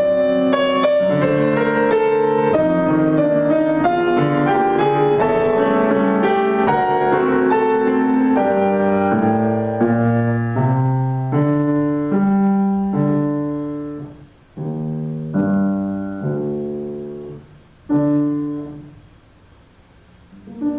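Solo piano playing the end of a Russian folk-song arrangement: a busy stretch of notes, then a few separate chords about two-thirds of the way in, each struck and left to die away. The last chord is struck near the end and fades out.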